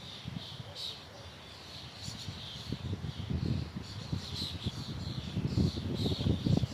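Small birds chirping repeatedly, with wind gusting on the microphone as a low rumble that builds from about two seconds in and becomes the loudest sound.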